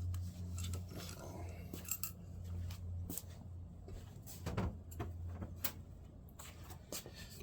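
Scattered light metal clinks and ticks of a screwdriver and small mirror-mount screws being handled, with one heavier clunk about halfway through. A steady low hum runs behind them.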